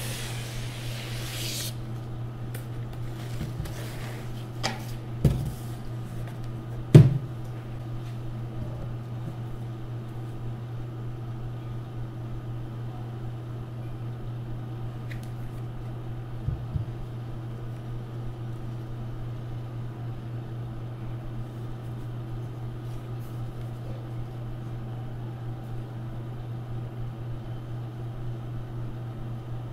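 A few knocks and clicks from a laptop and its packaging being handled, the loudest about seven seconds in and a quick double tap near seventeen seconds, over a steady low hum.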